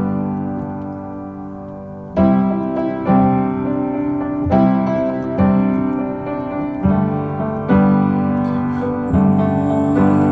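Instrumental passage of a song: piano chords struck about every second or so, each left to ring.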